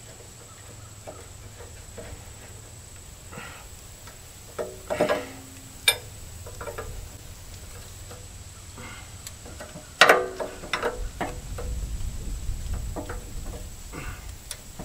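Wrench working a hydraulic hose fitting on a backhoe boom: scattered metallic clicks and knocks of steel on steel, some with a short ring. The loudest knock comes about ten seconds in, followed by a low rumble for a few seconds.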